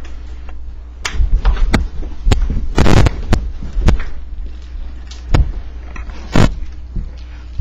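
Two people wrestling on the floor: a run of loud thumps and scuffles as their bodies hit the floor and each other, starting about a second in and dying away near the end.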